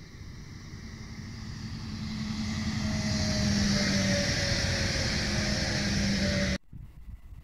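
Electric multiple-unit passenger train passing close at speed: wheel and rail noise swells over the first three seconds, with a steady hum from its traction equipment that sinks slightly in pitch as it goes by. The sound cuts off suddenly near the end.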